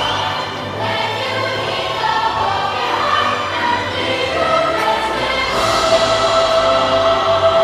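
Show music with a choir singing over orchestral accompaniment; a long held note comes in about five and a half seconds in.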